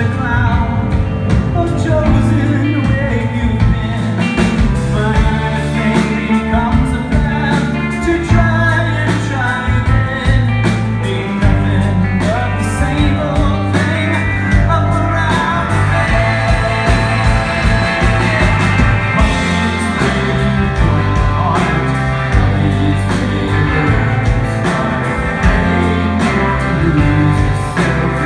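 Live rock band playing at full volume: electric guitars, electric bass and drums.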